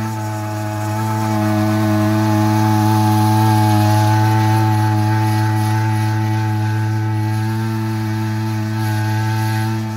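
Small two-stroke engine of a backpack power duster running steadily at a constant pitch while it blows granular fertilizer out through its long discharge tube.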